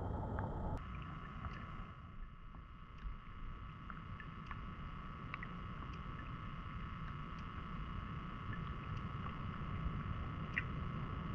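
Underwater sound picked up by a GoPro Hero 10 in its housing in river water: a low, muffled rumble of moving water with a steady hum over it and scattered faint clicks.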